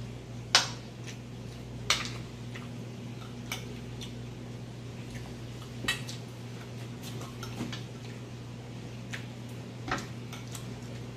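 Metal spoons and a fork clinking and scraping on glass plates as food is scooped up: a few sharp clinks at uneven intervals, the loudest about half a second in and near two seconds. A steady low hum runs underneath.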